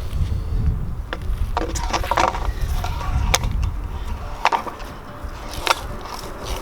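Irregular hard knocks and clatters of a PVC pipe being handled and fitted over a metal bird-feeder pole, over a low rumble that fades about halfway through.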